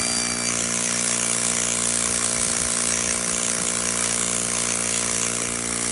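Small 12-volt air compressor running with a steady motor hum, and compressed air hissing out of its brass hose nozzle, with a thin whistle in the first half second.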